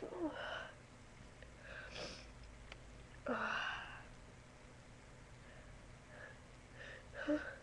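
A person with a cold and allergies sniffling and drawing short, sharp breaths through the nose, four times in all. The longest and loudest comes about three seconds in.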